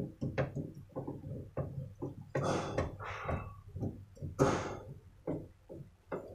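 A T-handle wrench loosening a 10 mm nut inside a car's rear door panel: irregular metallic clicks and knocks against the door's sheet metal, with louder scraping rasps about two and a half and four and a half seconds in.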